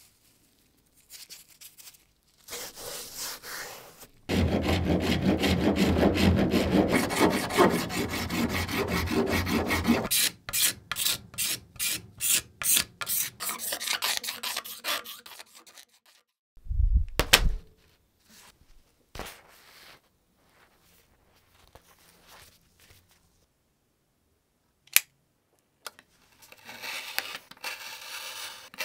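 Hand tool worked in back-and-forth strokes against a hard workpiece: a steady scraping for about six seconds, then slower separate strokes about three a second. Later come a few isolated knocks and a short return of scraping near the end.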